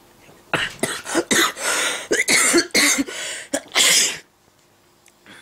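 A woman's fit of laughter breaking into coughing: a string of harsh, breathy bursts lasting about three and a half seconds that stops abruptly.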